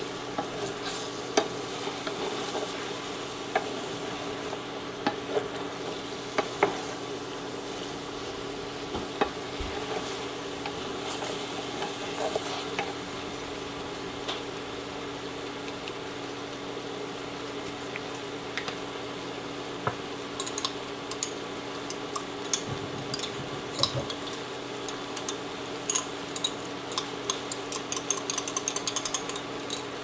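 Wooden spatula stirring and scraping rice cakes and bok choy in a frying pan over a steady sizzle, with scattered clicks of the spatula against the pan. The clicks come thicker and quicker near the end.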